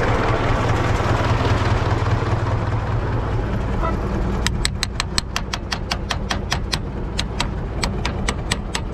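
U650 tractor's four-cylinder diesel engine running steadily under load while pulling a seed drill. From about halfway, a quick run of sharp clicks, roughly four a second, sounds over the engine.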